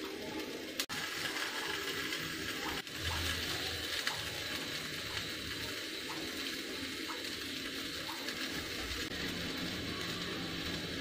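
Gas stove burner flame hissing steadily as a whole oil-coated eggplant chars directly on it, with a few faint pops from the skin.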